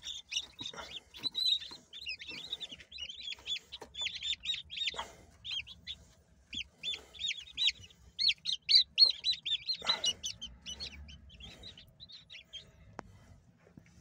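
Brahma bantam chicks peeping: many rapid high peeps overlapping, dense at first and thinning out after about ten seconds.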